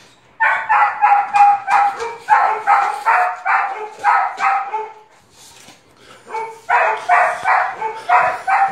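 A dog barking in two quick runs of high yips, about four a second, with a pause of about two seconds between them.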